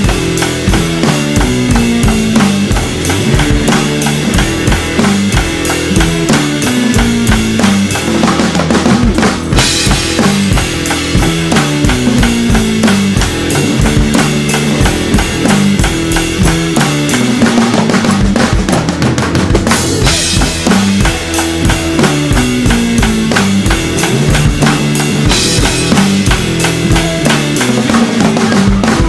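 Drum kit played with sticks in a busy improvised groove of fast snare, cymbal and bass-drum hits, over a backing track with a moving bass line.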